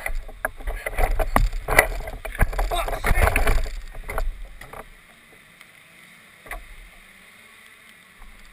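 Muffled rumbling and knocking on the onboard camera of a parked kart in wind and rain, with faint voices. It drops away about five seconds in to a faint hiss, broken by one more knock.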